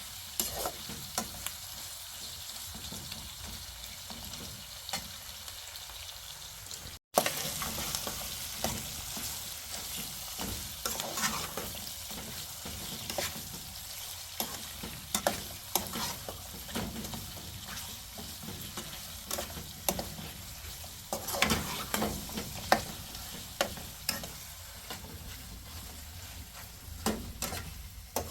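Food sizzling as it fries in a pan, with many short clicks and scrapes of a utensil stirring it. The sound drops out for a moment about seven seconds in.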